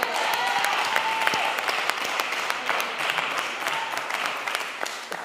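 Audience applauding, a dense patter of hand claps that gradually dies away near the end.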